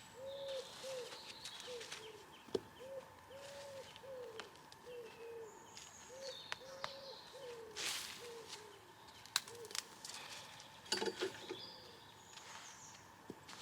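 A dove cooing steadily, a run of short soft notes at one low pitch. Small birds chirp higher up, and there are a couple of brief rustling scrapes, the louder one about eight seconds in.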